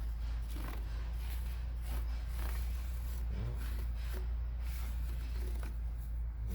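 Soft, irregular scraping and creaking as multi-purpose grease is smeared onto an exercise machine's drive chain with a piece of cardboard, over a steady low hum.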